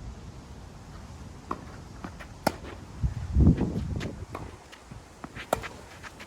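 Tennis singles rally: sharp cracks of the ball off the racket and court, a few seconds apart, with footsteps on the court. A low gust of wind buffets the microphone about three seconds in.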